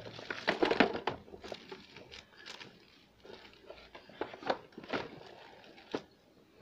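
Clear plastic bag crinkling and rustling as an electric demolition breaker wrapped in it is lifted and handled in its moulded plastic carry case, with a few sharp clicks and knocks later on.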